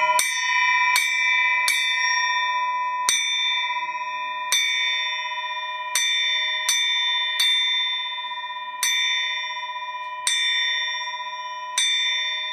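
A bell struck repeatedly at the same pitch, about eleven strikes, spaced roughly a second to a second and a half apart with a few quicker pairs, each strike ringing on into the next.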